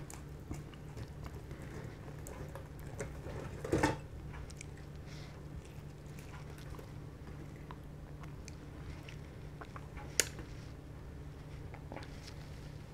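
Hands tearing apart a piece of crispy fried chicken breast, with faint crackling of the coating and soft squishy tearing of the meat, over a steady low hum. A brief louder noise comes just before four seconds in and a sharp click about ten seconds in.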